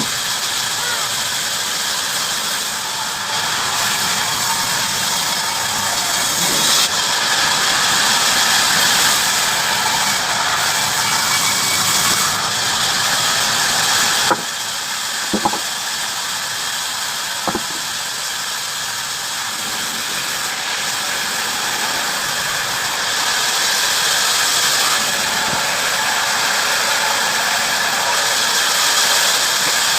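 Bandsaw running and cutting through wood: a steady, loud hiss that swells and eases as the cut goes on, with three sharp knocks a little past the middle.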